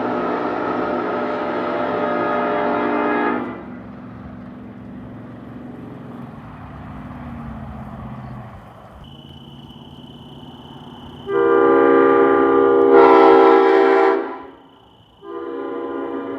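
Locomotive multi-chime air horn sounding chord blasts. One blast cuts off about three seconds in. After a stretch of lower train rumble comes a second blast of about three seconds, then a brief pause and a third that is still sounding at the end.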